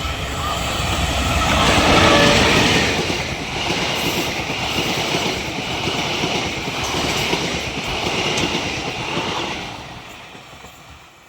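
Passenger train going past, its wheels clattering rhythmically over the rail joints. It is loudest about two seconds in and dies away near the end as the train moves off.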